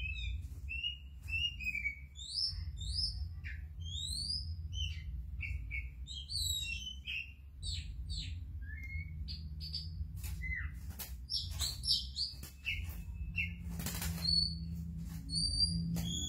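Oriental magpie-robin singing from inside a cloth-covered cage: a rapid, varied run of short whistled notes sliding up and down, with scattered clicks and a brief rustle about 14 seconds in, over a steady low hum.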